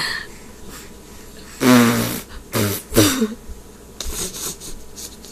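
Baby blowing raspberries, buzzing her lips to make spit-filled 'fart noises': one longer low buzz about two seconds in, then two shorter ones right after.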